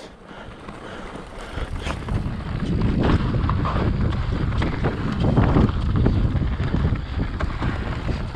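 Mountain bike riding down a dirt trail: wind rushing over the camera microphone and tyres rolling over the dirt, with many short knocks and rattles from the bike over bumps. It grows louder from about two seconds in.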